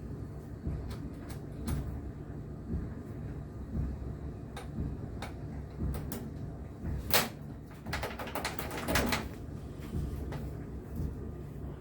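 Handling a seat belt's keyhole fitting on an MGB's rear deck: a series of clicks and clunks as it is unclipped and clipped on, the sharpest about seven seconds in, followed by a second or so of rustling webbing.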